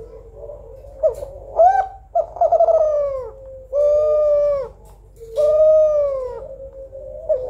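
Female Kelantan spotted dove (tekukur) cooing. Two short notes come about a second in, then three long coos, each dipping in pitch at its end.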